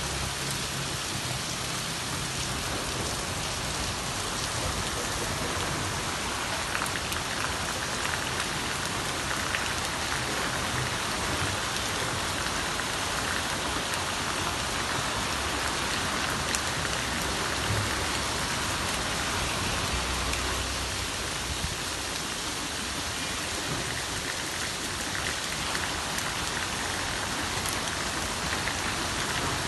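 Steady rain falling on wet paving and the street, an even hiss that holds without a break.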